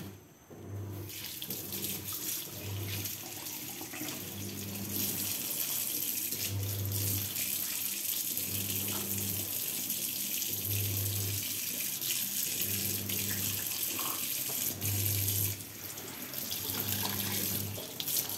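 Kitchen tap running into a stainless-steel sink, the water splashing over a whole fish being rinsed by hand. The flow starts about a second in and gets fuller a few seconds later, easing briefly near the end.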